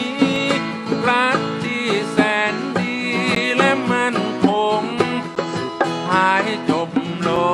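Live band playing an instrumental passage in a country style: rhythmic plucked strings under a lead melody line that slides up and down between notes.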